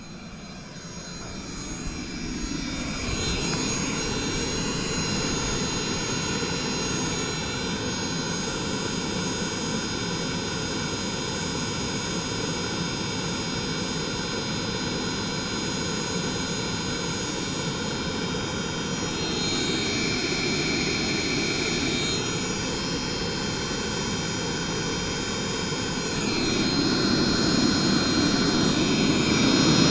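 Diesel hydronic heater running, its combustion-air blower and burner making a steady jet-like rush with a whine. It spins up over the first few seconds and gets louder near the end.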